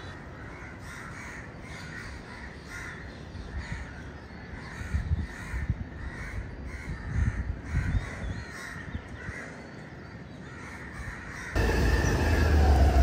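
Crows cawing over and over, about two calls a second. About a second and a half before the end, this gives way to a louder, steady rumble from riding a scooter.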